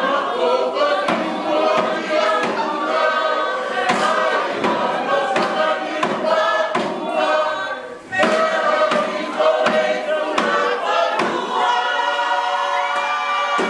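Tongan group singing in harmony to accompany a dance, with a sharp beat keeping time about twice a second. The singing dips briefly about eight seconds in, then comes back louder.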